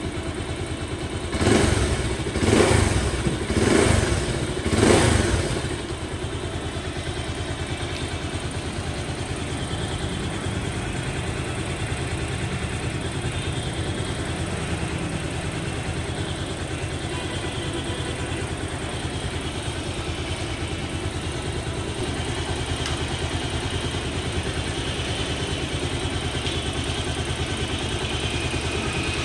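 Bajaj Pulsar 220F's single-cylinder engine idling, blipped four times about a second apart in the first few seconds, then settling back to a steady idle.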